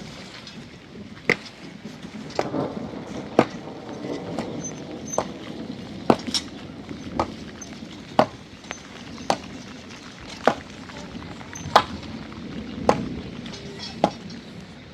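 A series of sharp blows, struck about once a second in a steady rhythm, over a low background rustle.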